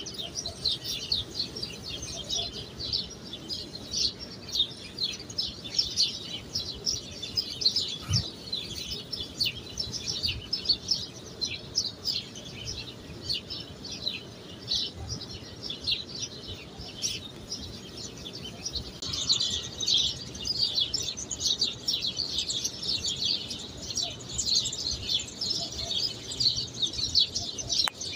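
Many small birds chirping without a break, a dense stream of short high chirps that grows thicker about two-thirds of the way in.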